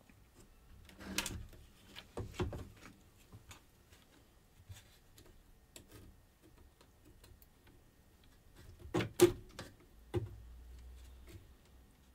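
Scattered light clicks, knocks and rustles of hands working a replacement slide potentiometer into the metal slider panel of an ARP 2600 synthesiser, among its wiring loom. The clicks come in small clusters, the loudest about nine seconds in.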